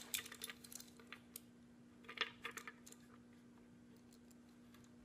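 Faint scattered clicks and light rattles of a hand crimping tool and small wire parts being handled, over a faint steady hum; the clicks die away after about three seconds.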